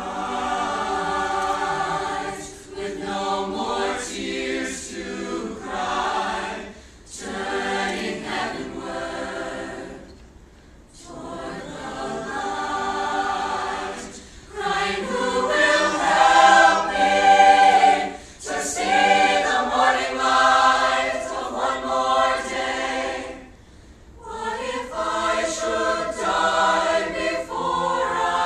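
Mixed choir of teenage boys and girls singing a cappella, in phrases of a few seconds separated by short pauses.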